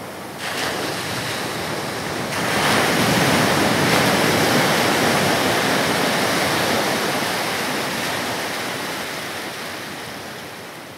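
Sea surf and wind: a steady rush of waves and wind that gets louder about two seconds in and slowly fades out near the end.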